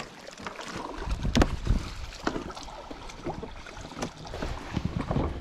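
Water lapping against a plastic sit-on-top kayak's hull, with wind rumbling on the microphone and a few light knocks.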